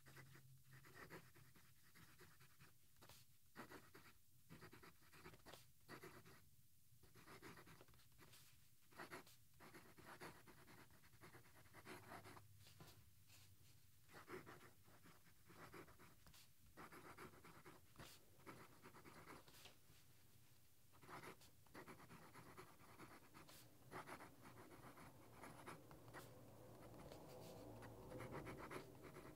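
Faint, irregular scratching of a vintage Waterman Ideal 52½V fountain pen's 14k gold semi-flex nib writing across a paper pad.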